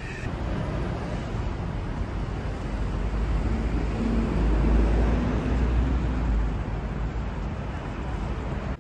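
City street traffic noise: a steady rumble of road vehicles, growing louder toward the middle and easing off again.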